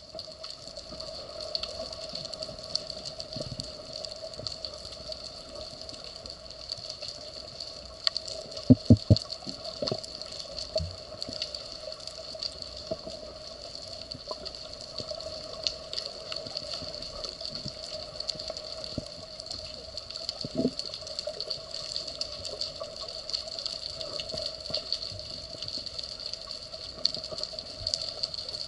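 Underwater sound heard through a camera housing: a steady hiss with a faint hum, scattered small clicks and crackles, and a short run of about four dull knocks about nine seconds in, with one more near twenty seconds.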